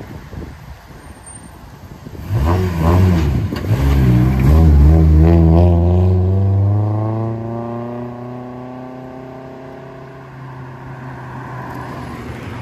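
Rally-styled VW Polo's engine accelerating hard as the car pulls out and drives off. The engine comes in loudly about two seconds in with wavering revs, then settles into a steady note that rises in pitch as it fades away up the road.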